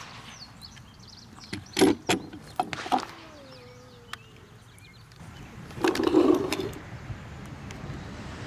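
Gunshots at an outdoor range: four or five sharp reports within about a second and a half, starting about a second and a half in, then a louder, longer burst of noise about six seconds in.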